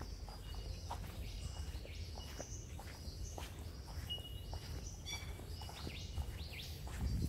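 Birds chirping and calling, including a quick trill about five seconds in, over soft footsteps on a path and a steady low rumble.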